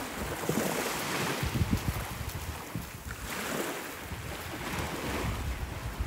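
Small lagoon waves washing up onto a sandy shore, swelling twice, with wind gusting on the microphone.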